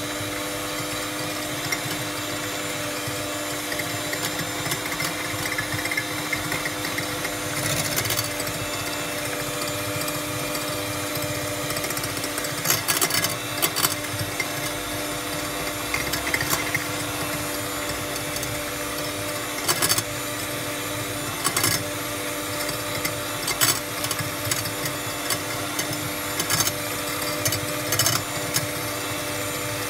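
Electric hand mixer running steadily, its beaters whipping eggs to a froth in a plastic bowl. The beaters clack sharply against the side of the bowl now and then, in small clusters about halfway through and toward the end.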